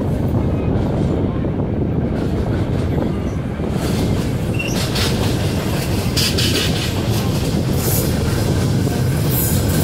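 Running noise of a ČD class 451/452 'Pantograf' electric multiple unit heard on board: a steady low rumble of wheels on rail. From about five seconds in, sharper clatter and rattles come over the track.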